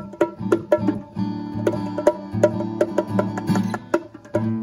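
Guitar playing a run of quick plucked notes over held low notes.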